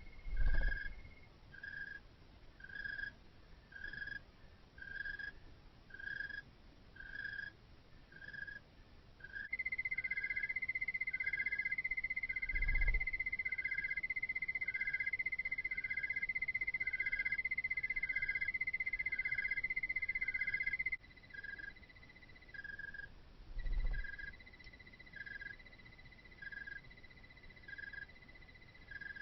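Night-time animal calls: short, evenly spaced chirps about one and a half a second, with a steady high trill joining from about a third of the way in until about two-thirds through. Three soft low thumps are spread across the stretch.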